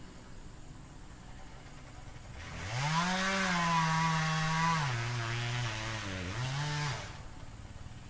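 Chainsaw revved up about two and a half seconds in, its pitch sagging for a second or so as it works the cut, then rising once more before stopping suddenly about seven seconds in.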